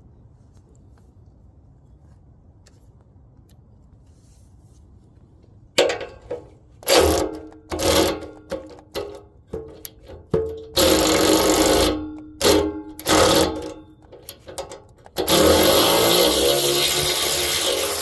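Power tool run in a string of short trigger bursts, then held for two longer runs, about a second in length and about three seconds near the end, while working on the exhaust hanger bushing.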